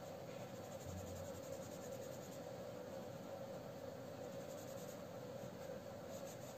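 Black felt-tip sketch pen scratching on paper, colouring in small shapes with black, faint over a low steady hum.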